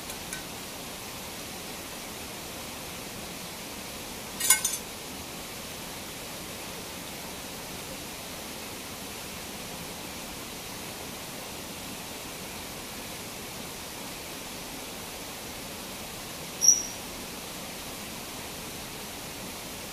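Steady rushing roar of a waterfall. About four seconds in there is a quick cluster of sharp clicks, and near the end a brief high-pitched chirp.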